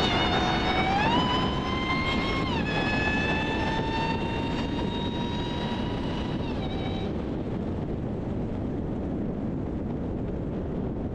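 Supercharger whine from a Dodge Hellcat's supercharged 6.2-litre HEMI V8 at speed: one high tone that climbs in pitch about a second in, drops a step about two and a half seconds in, holds, then stops about seven seconds in. Steady wind and road rush on the hood-mounted microphone runs underneath and is all that remains afterwards.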